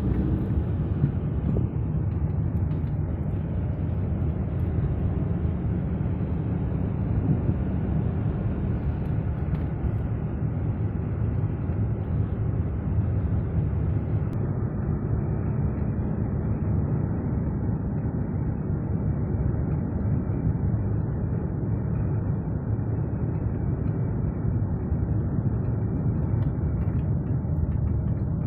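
Car driving along an off-road track: steady engine and tyre noise, mostly low-pitched, without marked changes.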